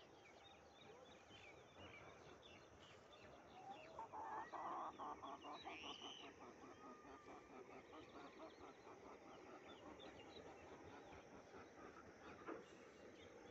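Faint calls from fowl and birds. About four seconds in, a run of rapid, evenly repeated clucks comes about five a second and lasts about three seconds. Small birds chirp faintly throughout.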